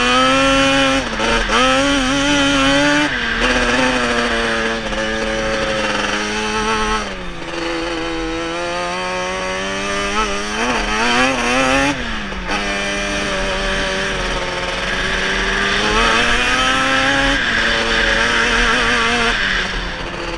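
Off-road vehicle engine running hard under throttle while riding over sand dunes, heard from the rider's helmet. Its pitch climbs and drops again several times as the throttle is opened and eased or gears are changed.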